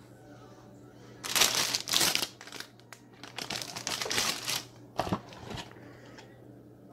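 Brownie mix packaging crinkling as the box and the pouch of mix inside it are handled and opened, in three bursts about a second apart.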